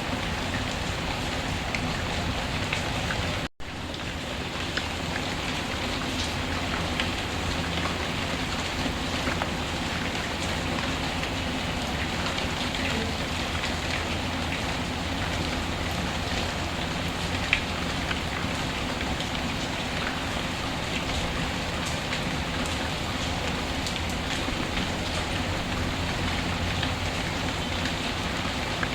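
Steady rainfall with scattered faint crackles from a wood fire. The sound cuts out for an instant about three and a half seconds in, where the loop is spliced.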